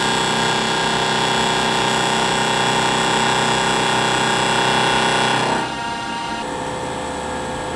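Vertical milling machine cutting an aluminium block: a steady, high whine of many tones from the cutter in the cut. It stops about five and a half seconds in, leaving a quieter machine hum.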